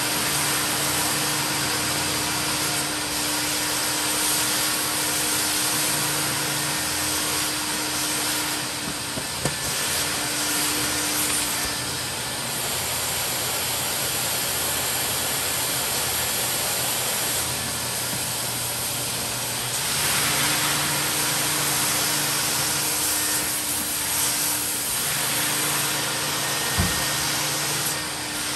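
Mytee Lite 8070 carpet extractor's vacuum motor running steadily, with a low hum that cuts out and back in several times. A single knock near the end.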